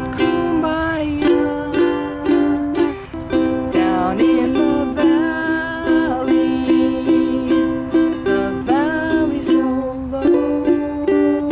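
Kala ebony tenor ukulele strummed in steady chord strokes, with a woman's voice singing along.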